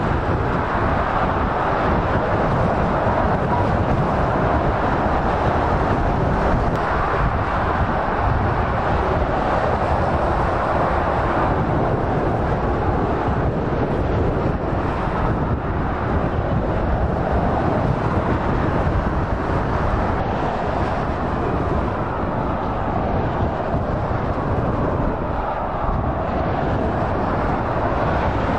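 Steady motorway traffic noise: lorries and cars passing at speed, their tyres on the road and diesel engines blending into one continuous rush.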